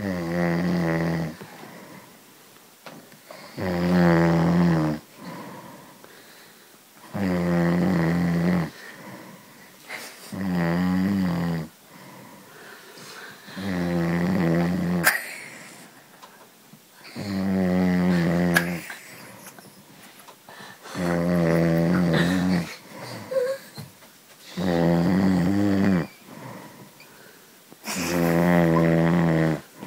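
A man snoring loudly and deeply in a steady rhythm: nine long, rattling snores, one about every three and a half seconds, each lasting around a second and a half.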